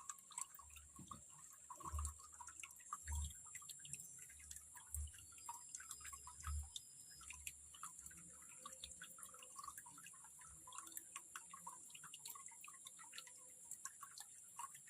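Faint water sounds: small drips and trickles with many scattered light ticks, a few soft low thumps, and a steady high hiss.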